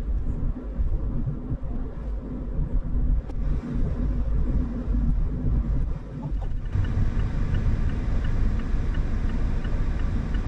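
Mazda Roadster on the move, a steady rumble of engine and road noise. About two-thirds of the way through the noise brightens and the turn signal starts ticking, about three ticks a second.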